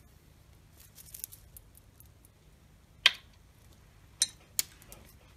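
A few small clicks and clinks of glass beads and metal findings knocking together as a beaded necklace is handled and laid down on a bead mat, the loudest a sharp click about three seconds in and a brief metallic chink just after four seconds.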